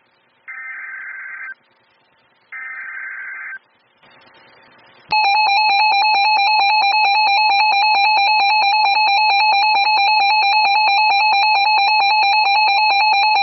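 Emergency Alert System broadcast on weather radio: two one-second bursts of buzzy digital header tones, then about five seconds in a loud, steady alert tone with a fast regular flutter, signalling an incoming warning.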